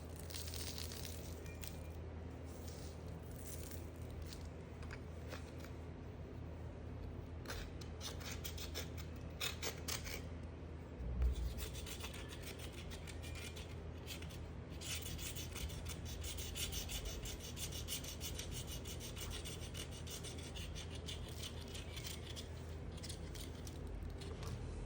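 Knife scraping and shaving a bar of soap in quick, fine strokes, with a single low thump about eleven seconds in.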